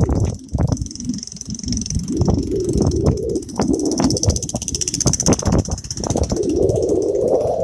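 Small motorbike engine running as the bike rides past along the path, its pitch rising near the end, over a steady high hiss.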